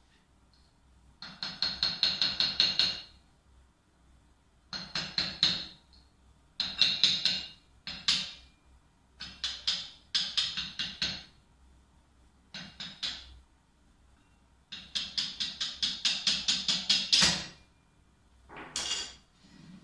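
Brass-headed hammer tapping a new roller bearing down onto a steel lathe spindle (Cazeneuve HB 575) to seat it. The taps come in about seven quick runs of several blows a second, with short pauses between. Each blow gives a bright metallic ring.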